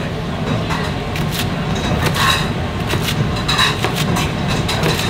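Chef's knife chopping vegetables on a cutting board: irregular sharp knocks, a few to the second, over a steady low rumble.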